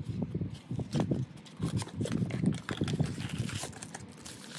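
Handling noise from opening a cardboard gift box: a string of light knocks and rubbing as the box is turned and its lid opened, then crinkling bubble wrap as the wrapped glass cup is lifted out in the later half.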